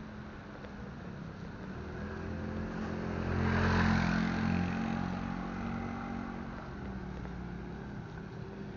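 A small motor scooter passes close by, its engine hum swelling to a peak about four seconds in and then fading away, over a steady background hiss of riding noise.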